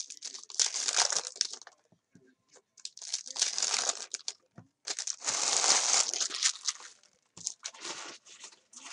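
Trading card pack wrappers being torn open and crinkled by hand, in four separate rips and rustles.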